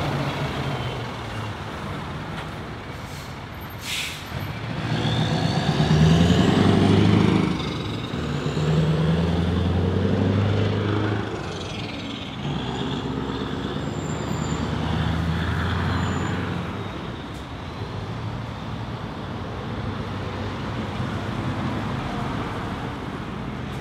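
Straight-piped Scania R620 V8 engine pulling away and accelerating, its exhaust note swelling and dipping several times, loudest about six to seven seconds in, then running quieter as the truck moves off. A short, sharp air hiss about four seconds in.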